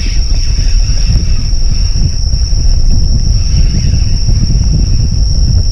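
Steady, high-pitched chirring of night insects under a loud, uneven low rumble on the microphone.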